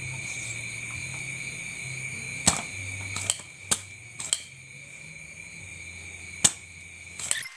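Spring-loaded desoldering pump snapping several times, sharp clicks loudest about two and a half seconds in and again near the end, as solder is sucked off the joints of a CRT TV's main board to take out the faulty flyback transformer.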